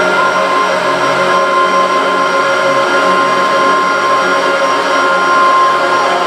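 Drone music: a dense, steady mass of held tones over a hiss, with deep tones that come and go underneath.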